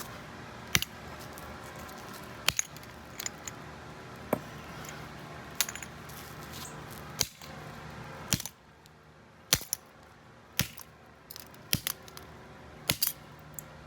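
Repeated blows smashing a metal doorknob on concrete: about a dozen sharp metallic clanks at irregular intervals, some in quick pairs, each with a short ring.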